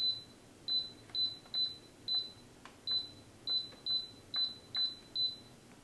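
Instant Pot Ultra's control panel beeping as its selection dial is turned to set the cooking time: about eleven short, high single-tone beeps at uneven intervals, with faint clicks from the dial.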